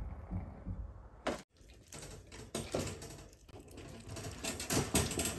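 Fennec fox chewing raw duck: a run of irregular wet clicks and crunches, cut off briefly about one and a half seconds in.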